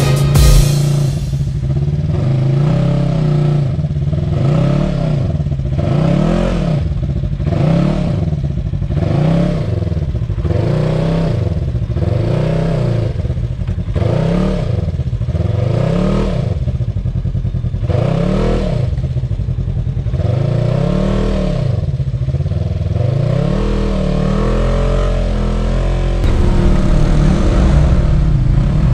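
Polaris RZR side-by-side's engine revving up and falling back over and over, about once a second, under load as it climbs a steep muddy gully. Near the end the sound changes to a closer, louder engine running steadily.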